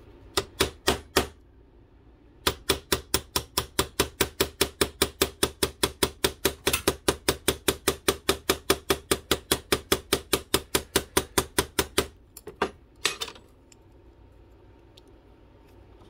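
Quick, even metal taps on a flat punch straightening the bent edge of an aluminum rudder on a plastic cutting-board block. Four taps, a short pause, then a long steady run at about four taps a second, and two last taps.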